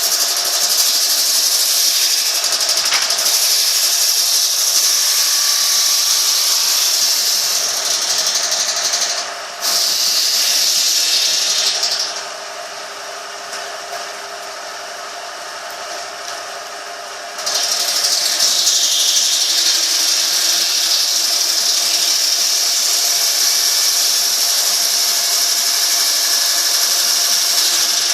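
Sawmill saw cutting wood, a loud steady high-pitched noise with a constant hum underneath. It eases off to quieter running about halfway through, then bites into the wood again about five seconds later.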